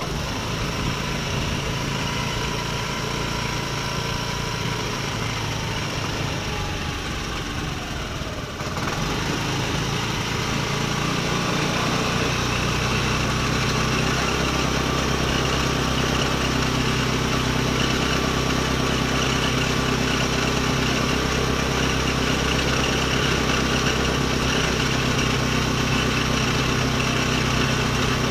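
Scooter engine idling while carbon-cleaning liquid is drawn into it through a syringe pushed into an engine hose. About nine seconds in, the idle grows a little louder and settles into a steadier, even note.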